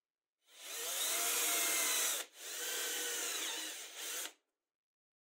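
Drill/driver boring into a laminated chipboard board, in two runs of about two seconds each with a short break between them.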